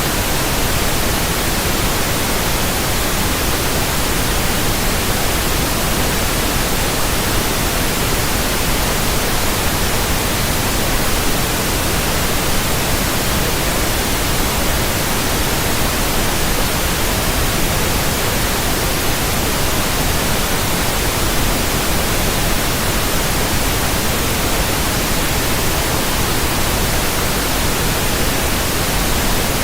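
Continuous static noise: a loud, steady hiss spread evenly across all pitches, with no tones, clicks or changes.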